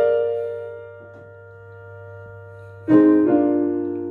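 Slow piano chords: a chord dying away, then a new chord struck about three seconds in and left to ring.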